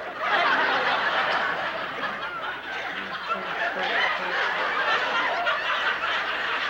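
Studio audience laughing, a steady crowd laugh.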